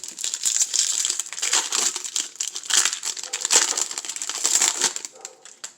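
Crinkling of a baseball card pack's wrapper being torn open and peeled back, a dense run of fine crackles that dies down near the end.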